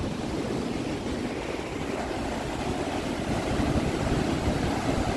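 Sea surf washing and breaking onto a sandy beach, mixed with wind rumbling on the phone's microphone. It grows a little louder in the second half.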